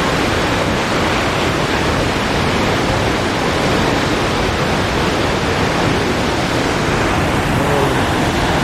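Large waterfall rushing: a loud, even wash of falling water with no let-up.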